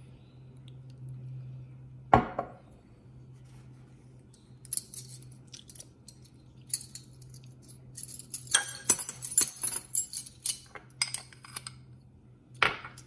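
Clinks and scrapes of a metal measuring spoon as half a teaspoon of kosher salt is measured out: a single knock about two seconds in, then a run of quick light clicks and clinks that grows busiest in the second half, with another knock near the end.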